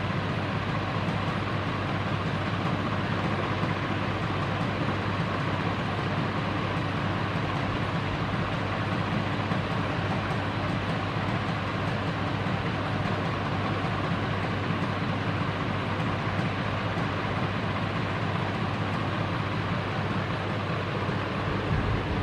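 CMC CF-101 48-inch industrial ceiling fan running steadily: a constant rush of moving air with a low, even motor hum.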